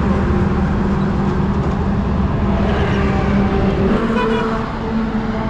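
Motorcycle engine running steadily under wind and road noise from passing traffic, easing off as the bike slows to a stop. A short high beep sounds about four seconds in.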